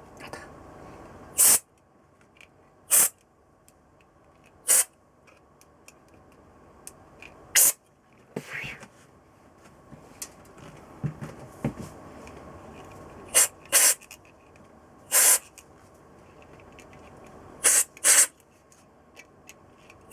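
About a dozen short hissing blasts of pressurised spray, a fraction of a second each and spaced irregularly, some in quick pairs.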